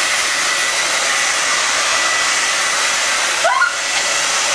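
Hand-held hair dryer blowing steadily, a loud even rush of air with a faint whine over it. A short rising vocal sound cuts in briefly about three and a half seconds in.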